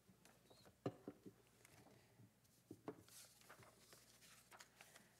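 Near silence: room tone with a faint steady hum and a few scattered faint clicks and knocks, the clearest about one second and three seconds in.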